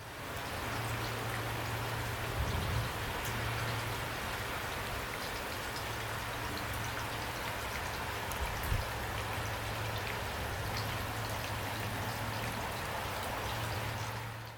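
Heavy rain falling steadily, a dense even patter of drops, with a low hum underneath and two brief low thumps, about two and a half and nine seconds in.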